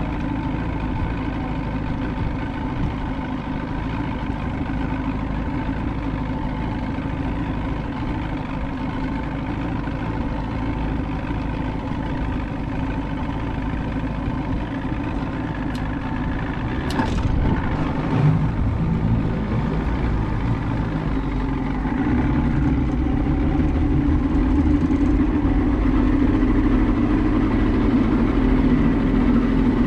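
An engine idling steadily. It grows louder in two steps through the second half, with a sharp click just past the middle.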